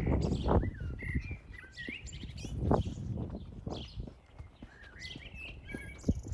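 Small songbirds chirping and twittering in quick, gliding calls, over the walker's footsteps thudding steadily.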